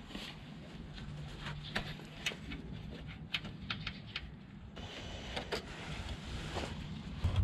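Scattered light clicks and taps of hands handling the clutch slave cylinder and its fittings on the gearbox while refitting it, with a faint low hum in the first half.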